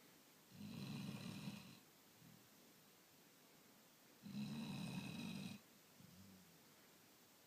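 A dog snoring in its sleep: two snores, each a little over a second long and about three and a half seconds apart, with a faint short sound after each.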